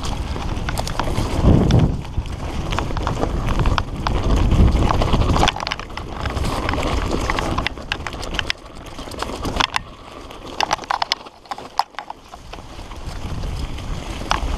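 Mountain bike riding down a rough dirt trail, heard from a helmet camera: wind rumbling on the microphone, tyres on dirt, and frequent clattering knocks as the fully rigid singlespeed (Redline Monocog) jolts over bumps and roots. The rattling eases briefly about two-thirds of the way through, then builds again.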